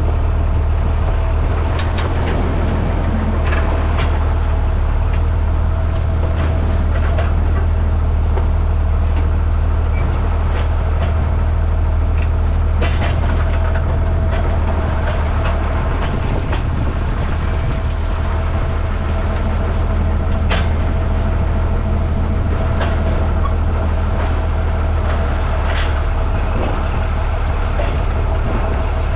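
Heavy machine's engine running steadily under load while towing an old harvester, with occasional sharp clanks and knocks.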